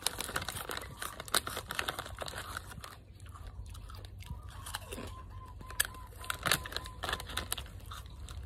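Crunching and chewing of a crispy baked snack, close to the microphone, mixed with tearing and crinkling of a foil snack packet and a plastic bag. The sound is a dense run of sharp crisp crunches.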